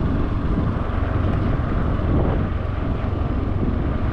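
Steady rumble and rush of a moving vehicle, with wind buffeting the microphone.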